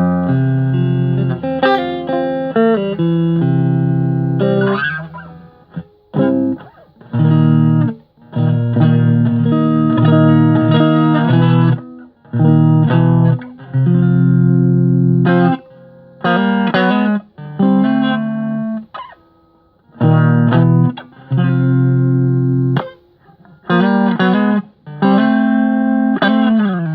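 Agile TC625 Telecaster-style electric guitar played clean through an amp set to a Twin Reverb sound with the reverb off: strummed chords and short phrases that ring out, broken by several brief pauses.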